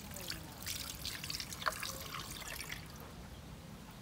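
Coconut water running in a thin stream from a hole in a fresh green coconut into an aluminium pot of snails, trickling and dripping onto the shells. The flow thins out in the last second.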